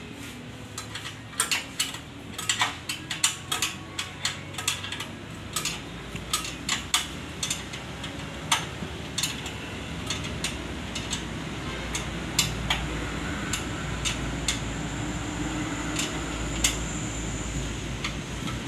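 Irregular sharp metallic clicks and clinks of hand-tool work on the mounting of a small petrol engine, close together in the first half and sparser later.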